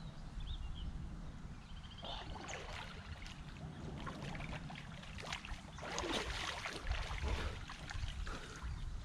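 Water splashing and sloshing as a person wades and swims in open water, in irregular bursts that begin about two seconds in and grow strongest a little past the middle.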